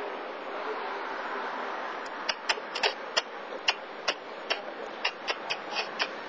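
A run of sharp, irregular clicks, about two or three a second, starting about two seconds in, over a steady outdoor hiss.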